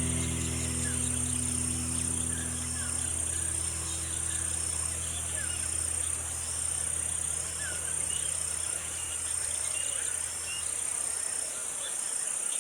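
Wild insects with a steady high drone and a second pulsing insect call repeating evenly, with a few faint bird chirps. A low sustained music chord fades out over the first several seconds.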